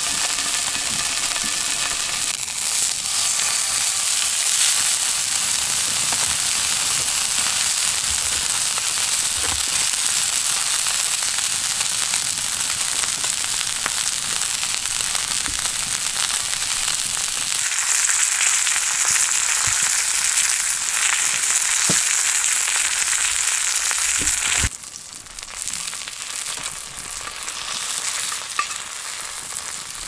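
Marbled beef steak frying in a black frying pan, a steady loud sizzle. About 25 s in it drops suddenly to a quieter sizzle with a few small pops.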